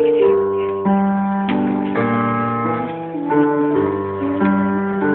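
Piano playing a chordal accompaniment, with a new chord struck every half second to a second and no voice over it, recorded on a mobile phone.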